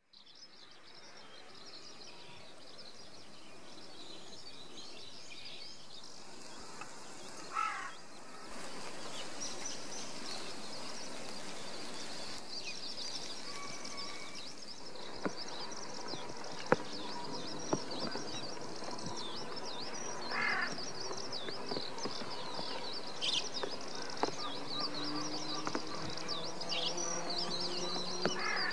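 Outdoor morning bird chorus: many small birds chirping and twittering continuously, with a few louder, lower calls standing out about 8 and 20 seconds in and again near the end. The sound fades in over the first few seconds.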